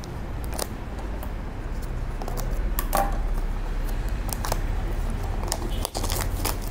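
Hands opening a small cardboard box and handling its packaging: scattered rustles and light clicks.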